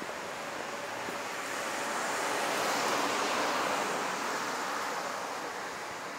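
A road vehicle passing by, its tyre and engine noise swelling to a peak about three seconds in, then fading away.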